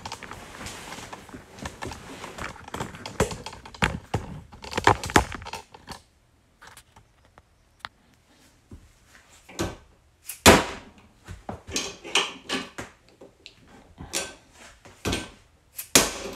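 Clattering, then a short quiet spell, then a series of sharp knocks and metal clanks, the loudest about ten seconds in, as a combination padlock clamped in a bench vise is forced with a steel bar through its shackle and struck with a dead-blow mallet. Near the end the shackle breaks free of the lock body.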